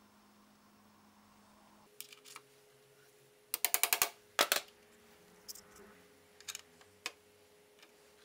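Light metal-on-metal clicks from a metal tool against a stainless pipe drill guide on a steel hinge: a quick ringing rattle about three and a half seconds in, a sharper tap half a second later, then a few faint clicks.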